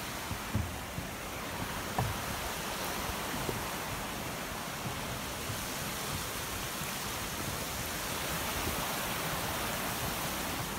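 Steady rush of a small river running over rapids, with a couple of soft knocks in the first two seconds.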